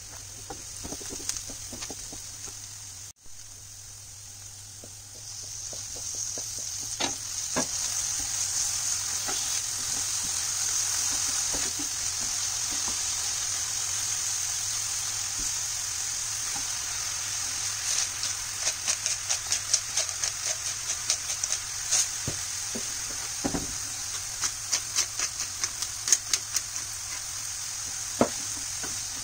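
Diced onion, spinach and mushrooms sizzling in a frying pan while being stirred with a wooden spoon; the sizzle grows louder a few seconds in and holds steady. In the second half a run of quick, sharp clicks sounds over it.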